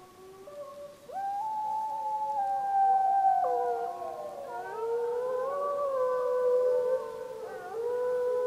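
Several wolves howling together in a chorus: long overlapping howls at several pitches, some held level and some sliding up or down. The chorus gets much louder about a second in.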